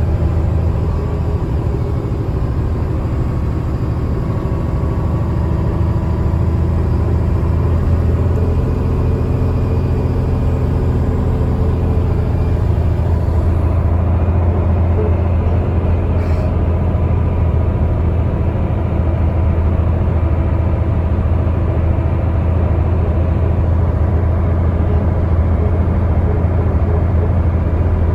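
Mercedes-Benz O307 city bus under way, heard from inside the passenger cabin: a steady low engine and road rumble.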